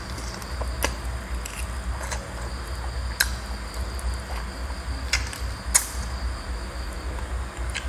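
Close-up mouth sounds of a person eating roast chicken by hand: chewing, finger-licking and lip-smacking, heard as scattered sharp clicks, the loudest about three and six seconds in. A steady high-pitched trill and a low hum run underneath.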